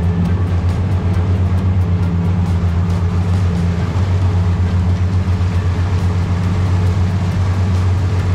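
A vehicle engine running at a steady speed: a continuous low drone, with a higher hum that fades in and out every second or so.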